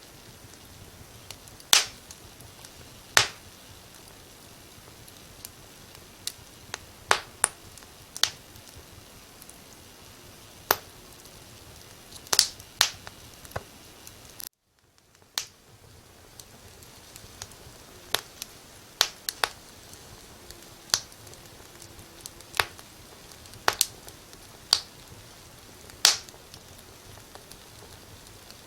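Wood fire crackling: irregular sharp pops, some loud, over a steady soft hiss. About halfway through the sound cuts out abruptly for a moment and fades back in.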